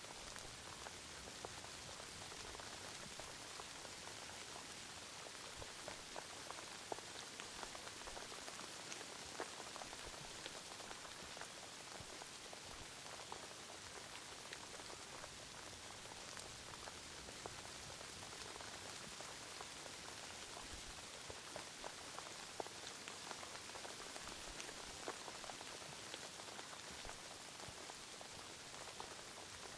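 Steady rain: an even hiss with many separate drops ticking throughout.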